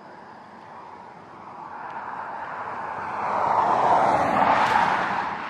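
A vehicle driving past on a paved road: tyre and engine noise swelling over a few seconds, loudest about four to five seconds in, then beginning to fade.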